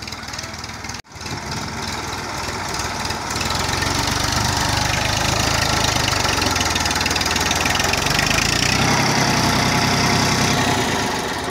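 Massey Ferguson 1035 DI tractor's diesel engine running with a rapid, even beat, cutting out briefly about a second in and growing louder about three seconds in.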